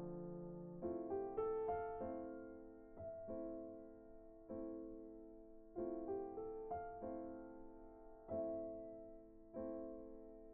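Background piano music: slow, soft chords struck about once a second, each left to ring and fade.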